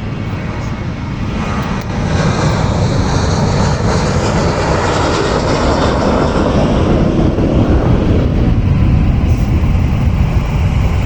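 Boeing 737-800's CFM56-7B turbofan engines at takeoff thrust: loud jet noise that builds over the first two seconds and then holds steady.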